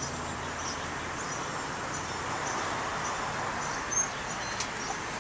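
Steady outdoor street-side noise with faint high chirps of birds and insects, a low hum fading away in the first second, and one sharp knock about four seconds in.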